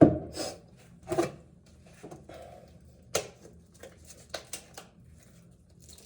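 Hard plastic parts of a reverse-osmosis filter system being handled: a loud thump at the start, then scattered knocks and clicks.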